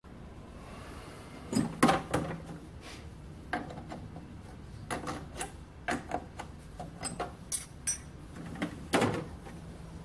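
Scattered clicks and knocks of steel bar stock being set into a lathe collet chuck and tightened, the loudest about two seconds in and again near the end.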